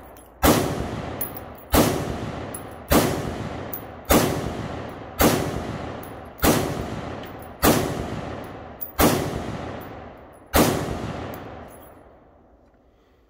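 Springfield Saint Victor AR-15 rifle in 5.56 firing nine single shots, about one every second and a bit, each followed by a long echo that dies away; the last shot fades out near the end.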